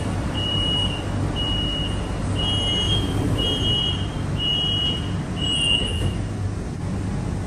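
Metro train door-closing warning: a run of high beeps, about one a second and each about half a second long, over the steady low hum of the train standing at the platform. The beeps stop about six seconds in.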